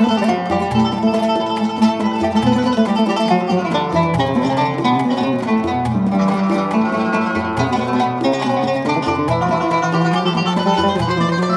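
Instrumental background music led by plucked strings, with short melodic notes over low bass notes that come about once a second.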